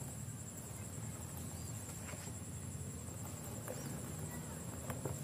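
Faint steady low background hum with a few soft clicks.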